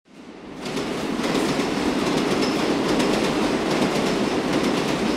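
Subway train running on the rails: a steady rumble with the rapid clatter of wheels over rail joints, swelling up over the first second.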